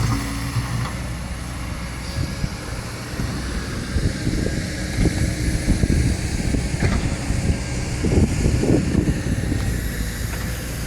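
Kobelco SK200 excavator's diesel engine running steadily, with a louder, uneven stretch of rumbling from about four to nine seconds in.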